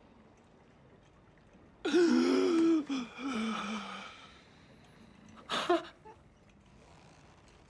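A man's loud, strained gasp about two seconds in, wavering and falling in pitch over about two seconds, followed a few seconds later by a short, sharp intake of breath.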